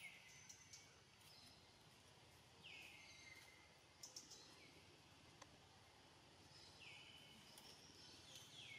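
Faint forest ambience with a bird's short call sliding down in pitch, repeated several times a few seconds apart, and a few faint clicks in between.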